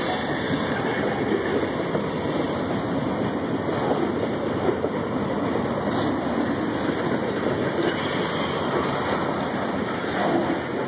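Freight train boxcars rolling past at close range: a steady noise of steel wheels running on the rails.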